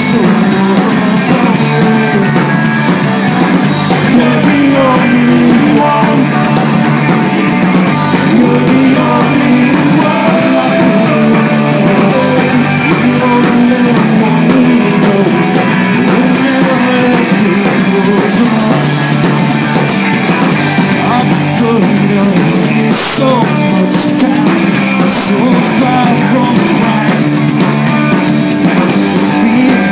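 Rock band playing live and loud: electric guitars and drums.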